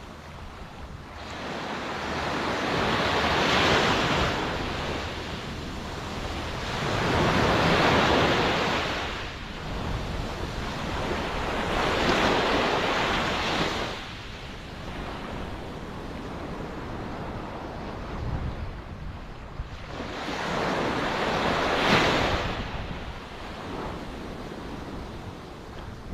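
Ocean surf: waves rushing in and breaking in slow surges, four swells of hissing water that rise and fall, with a quieter lull between the third and fourth.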